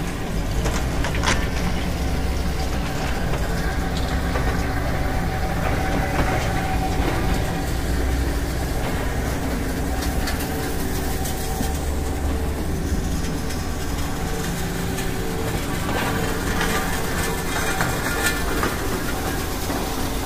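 Steel slag processing machinery running: a rod mill, rotary screen and magnetic separator. It makes a steady low rumble with a constant hum and a few scattered clanks of material.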